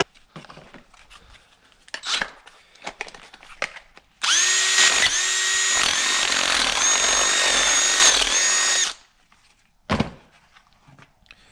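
Power drill running for about five seconds, its motor whine dipping several times as it drives in a seat belt anchor bolt. Small parts clatter before it starts, and a single knock follows.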